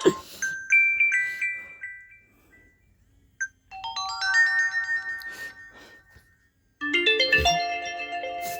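Honor X9C 5G smartphone ringtones played one after another, each cut short or fading out. A short chiming melody is followed by a descending run of bell-like notes that dies away. After a brief pause, a fuller, denser melody starts near the end.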